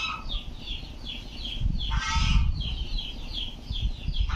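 Domestic geese honking: a harsh call about every two seconds, over a steady run of short, high, falling peeps repeating about three times a second.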